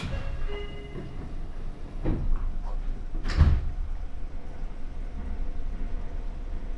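Passenger train's sliding doors closing: a sharp click at the start, then two heavy thuds about two and three and a half seconds in, over the low hum of the stopped carriage.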